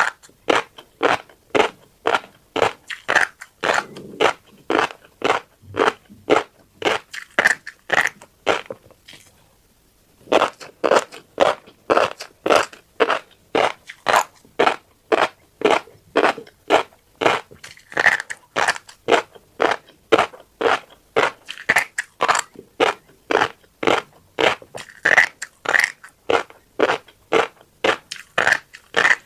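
Close-miked chewing of a mouthful of tiny black seeds: steady crunching at about two chews a second, stopping for a couple of seconds about a third of the way in, then going on.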